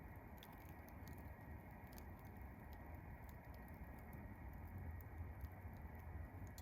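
Wood campfire crackling faintly: small, irregular pops and ticks over a low steady rush.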